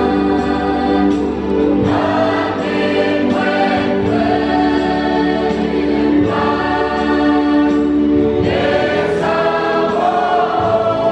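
Women's church choir singing a hymn in harmony, holding long notes.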